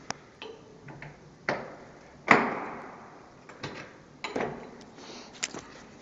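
Metal door with a panic exit bar being tried while locked: latch clicks and knocks, a loud bang a little over two seconds in that rings out for about a second, and another ringing knock near four and a half seconds.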